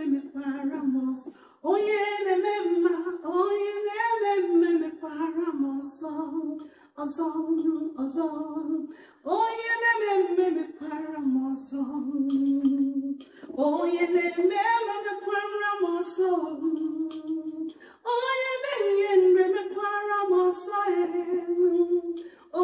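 A woman singing a worship song solo and unaccompanied into a handheld microphone, in phrases of a few seconds with short breaks for breath.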